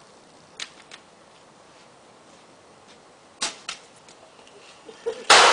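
A few sharp cracks, then near the end a single loud firework bang with a long trailing echo.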